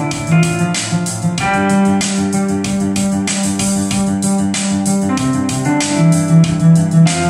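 Synth-pop music: an electronic keyboard playing held chords and a moving low line over a steady electronic drum beat.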